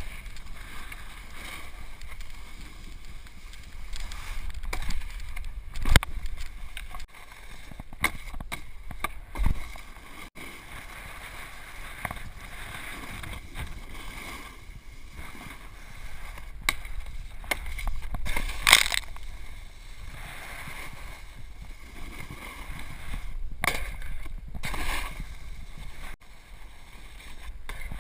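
Snowboard sliding and carving over packed snow, a steady scraping rush with wind buffeting the camera microphone. A few sharp knocks cut through it, the loudest about six seconds in.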